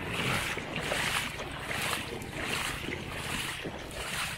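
Footsteps wading through shallow floodwater over a road: a sloshing swish with each stride, repeating roughly every three-quarters of a second.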